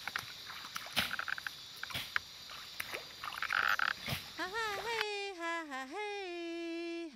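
Rainforest ambience: a steady high insect drone, frog calls and scattered sharp snaps and clicks. About four seconds in, a woman's voice begins singing a slow chant in long held notes that glide up and down, and it carries on to the end.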